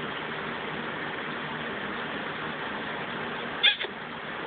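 A cat gives one short, sharp meow about three and a half seconds in, over a steady hiss.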